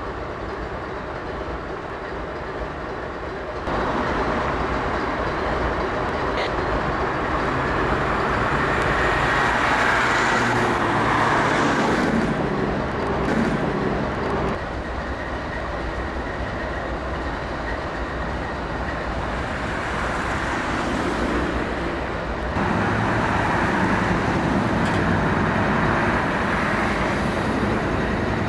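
GE diesel-electric freight locomotives standing on a steel girder railroad overpass, their engines running steadily at idle. The level swells and drops a few times.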